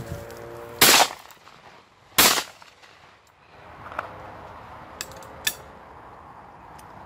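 Two shotgun shots about a second and a half apart, fired during a wood pigeon hunt, each with a short echo.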